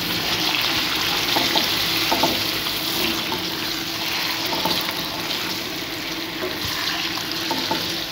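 Chicken pieces sizzling in hot ghee in a metal pan, stirred with a slotted spatula that scrapes the pan a few times. The chicken is being seared until it changes colour.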